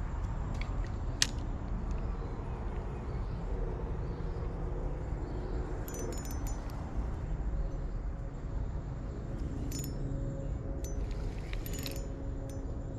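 Brief bursts of light metallic jingling and clinking, a few times, with a sharp click about a second in, over a steady low rumble.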